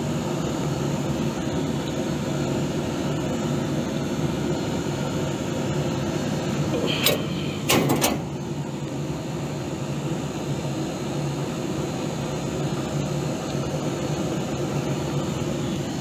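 Steady hum of refrigeration or air-conditioning equipment running close by. Short sharp clicks come about seven seconds in and again just before eight seconds.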